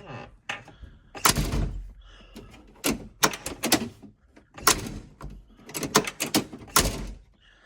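1981 C3 Corvette door latch and handle linkage being worked over and over, giving several sharp clicks and clunks in quick groups about a second or two apart. The linkage is being tested for a latch that will not release from the handle.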